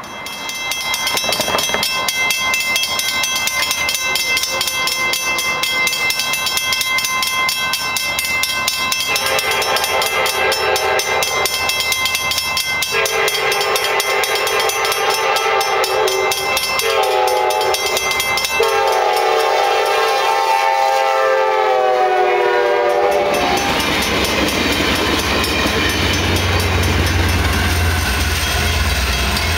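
An Amtrak passenger train approaching a grade crossing. The crossing bell rings rapidly, then the train's multi-tone horn sounds the crossing signal: two long blasts, a short one and a final long one whose pitch drops as it comes by. About two-thirds of the way through, the train passes loudly, with a low engine rumble and rushing wheel noise.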